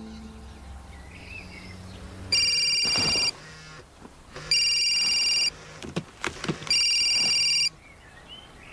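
A telephone ringing: three warbling electronic rings, each about a second long and about a second apart, with a few soft rustles of bedclothes between them.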